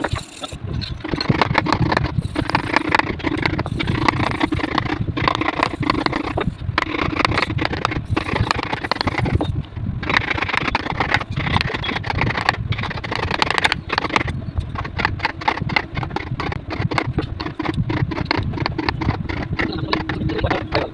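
A tool working wood, a continuous rasping scrape over a steady hum, easing off briefly a few times.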